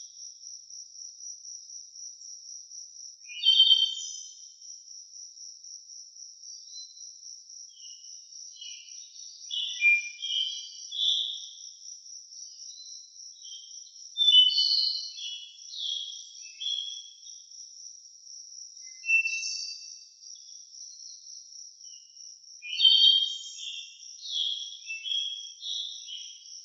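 An insect trills steadily on one high, rapidly pulsing note throughout. Over it, songbirds sing short bursts of varied whistled phrases every few seconds; the loudest come about 4, 14 and 23 seconds in.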